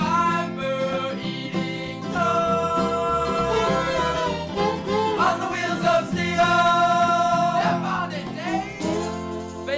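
Sung theme song: a singer holds long notes over instrumental backing with a steady bass beat.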